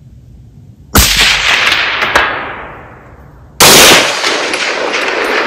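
A rifle shot about a second in, its report echoing and fading over the next two seconds, with a faint sharp knock about a second after it, as of the bullet striking a steel gong downrange. Past the middle a second loud burst of noise starts abruptly and holds at full level.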